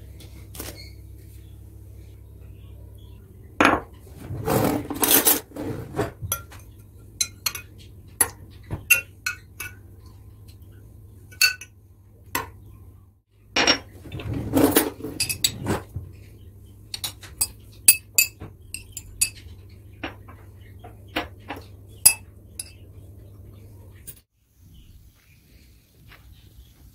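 Cutlery clinking against plates and dishes: a string of sharp, separate clinks, with two longer, noisier stretches of clattering a few seconds in and again about halfway through.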